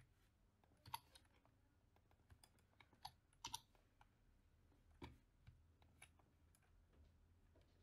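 Faint, scattered clicks of a computer mouse and keyboard, several short clicks at irregular intervals over a low steady hum.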